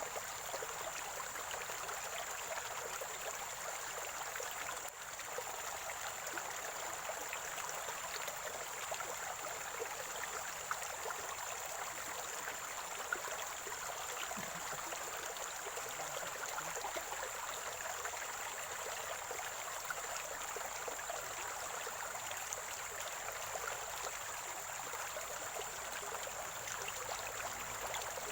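Small spring-fed stream flowing and gurgling, a steady rush of water dotted with tiny splashes and bubbles. A thin, steady high tone runs under it throughout.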